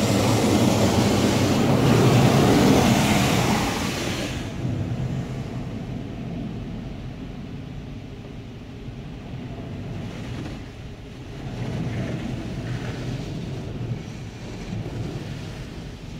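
Touchless car wash spraying water and soap onto a minivan, heard from inside the cabin: a loud hiss of spray drumming on the body for about the first four seconds, then dropping to a quieter wash of running water as the arm moves on.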